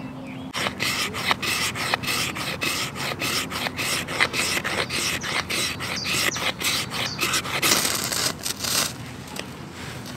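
Ferrocerium rod (fire steel) scraped repeatedly with a striker, short rasping strokes about three a second, with a denser run of scraping near the end, throwing sparks onto wax-and-cotton earplug tinder.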